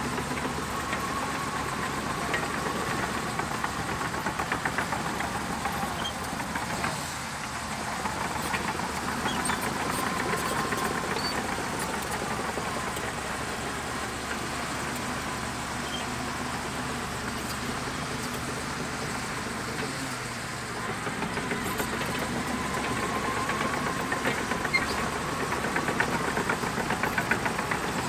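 Diesel engine of a Shantui DH17C2 crawler bulldozer running steadily as it works, its whining note rising and falling a little with the load.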